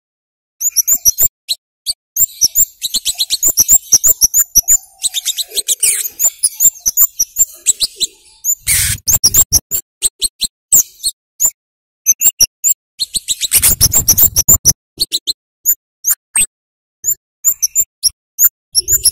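Scarlet-headed flowerpecker (kemade) giving rapid, sharp, high-pitched 'cit' chip calls in quick runs, the kind of call recording played as a lure to get young captive birds calling. Two brief bursts of rough noise break in, about 9 and 14 seconds in.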